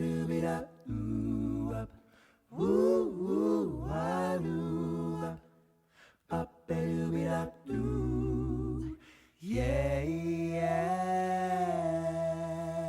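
Unaccompanied singing voice: several short phrases with sliding pitch, then one long held note with vibrato near the end.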